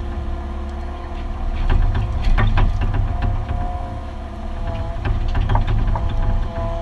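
Mini excavator heard from inside its cab while digging: the diesel engine runs under load with a low rumble and steady whining tones that swell and fade. A scatter of sharp clicks and knocks, densest about two to three seconds in, comes from the machine working.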